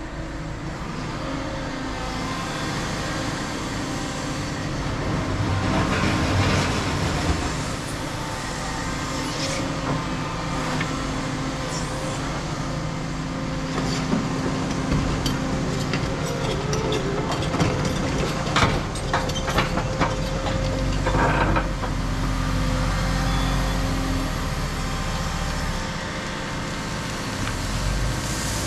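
Cat 335 excavator's diesel engine running steadily under hydraulic load while it backfills with gravel, with a run of clattering knocks in the middle as the bucket works the stone.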